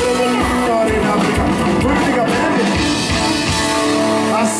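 Live band music with a steady drumbeat and an acoustic guitar, played loud over an outdoor dance crowd.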